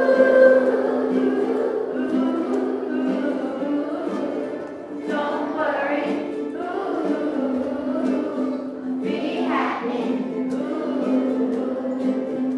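A large group of young children singing a song together, accompanied by a ukulele.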